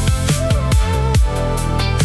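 Electronic background music with a steady kick-drum beat under sustained synth tones.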